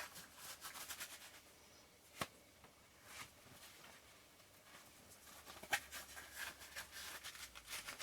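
Faint rustling and handling noises as rubber gloves are pulled on, with two sharp clicks, about two seconds in and near six seconds.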